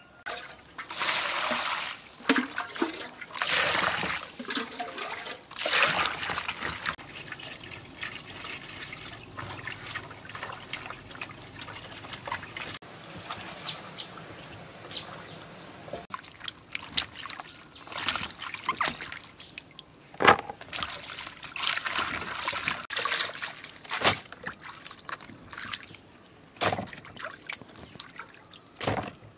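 Water trickling and splashing in irregular bursts, with scattered sharp clicks and crackles between them.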